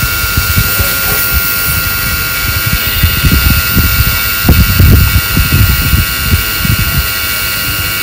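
Small DC motor spinning a plastic fan on a homemade mini air conditioner, running with a steady high whine and hiss. Irregular low rumbles come and go over it, loudest about halfway through.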